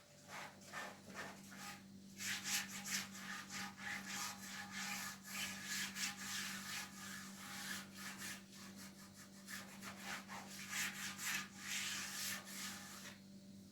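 Rapid, repeated rubbing or scraping strokes that start about two seconds in and stop shortly before the end, over a steady low hum.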